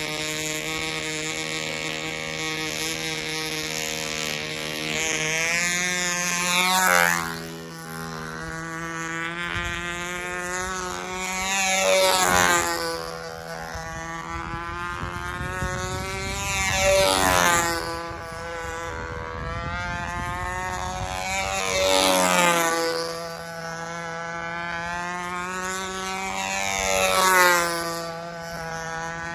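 Small glow-type model-aircraft engine on a control-line plane running at steady speed. It swells louder and drops in pitch about every five seconds as the plane circles past the microphone.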